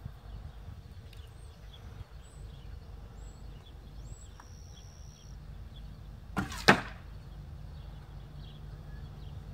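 A single arrow shot from a traditional bow: a sharp release, then about a third of a second later a louder, sharp smack as the arrow strikes a foam block target.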